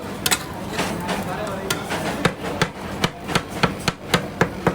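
Metal spatulas chopping on a rolled ice cream cold plate, mashing dragon fruit into the cream: sharp clacks, a few spaced out at first, then about three a second.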